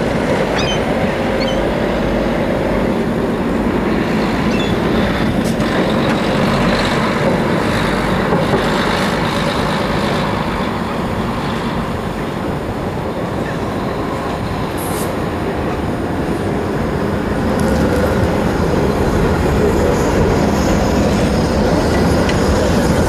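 Traffic at a busy tram-and-bus junction: city buses and trams running over the rails. An articulated tram passes close near the end, getting louder as it comes.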